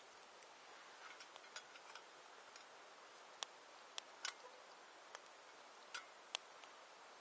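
Wood campfire crackling: irregular sharp pops and snaps over a faint steady hiss, a few louder pops near the middle.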